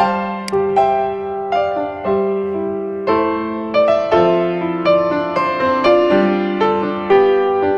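Background piano music: a slow melody, with a new note struck about every half second to second and each note held until the next.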